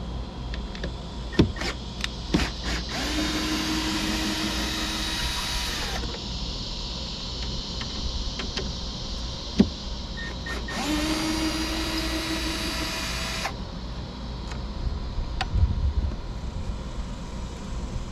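Cordless drill/driver backing out the two screws that hold a boat step, in two runs of about three seconds each, the motor winding up at the start of each run. A few sharp clicks and knocks from handling the drill and step come between the runs.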